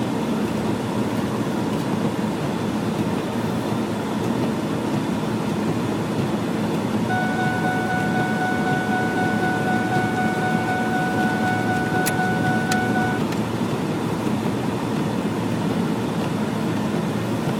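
Steady engine and road noise inside a moving vehicle. About seven seconds in, a steady high tone with overtones sounds for about six seconds and cuts off, and two sharp clicks come just before it ends.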